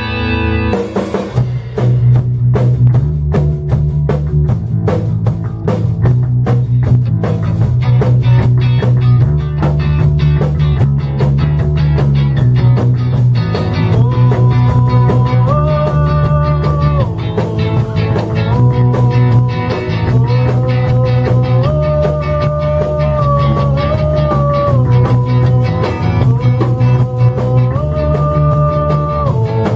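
Rock band playing live: a drum kit keeps a steady beat under electric guitars and a low bass line. About halfway in, a held melody line comes in, its long notes stepping up and down.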